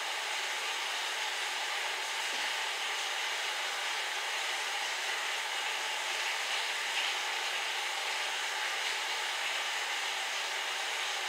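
Steady, even hiss of an electric fan running, with no change in level throughout.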